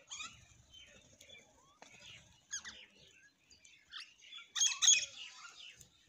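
Common mynas and house sparrows chirping while feeding: short, scattered high calls, with a loud burst of several calls about four and a half seconds in.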